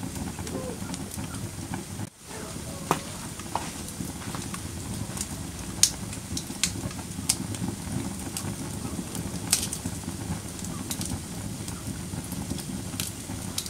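Fire burning in a fireplace: a steady low rumble with sharp crackles and pops every second or so, and a brief drop-out about two seconds in.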